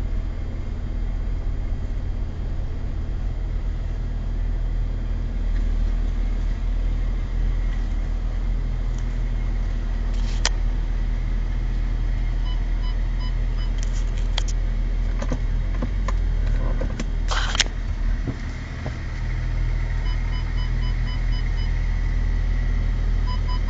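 Audi Q7 parking-sensor warning beeping in short runs of evenly spaced beeps, the last run faster. Underneath is the steady low rumble of the running car heard inside the cabin, with a few scattered clicks.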